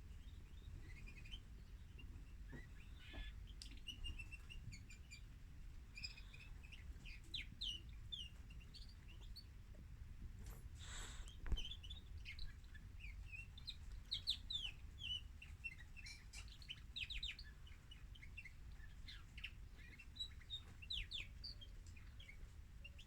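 Female canary singing in the manner of a male: scattered short, quick high chirps and trill notes. About halfway through there is a brief rustle and then a sharp click, the loudest sound here.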